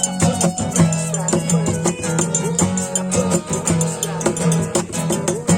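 Music: plucked strings with a shaker keeping a steady rhythm.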